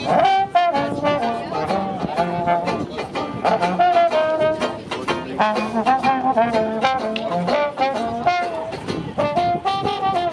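Upbeat brass music led by trombones, with a melody over a steady beat.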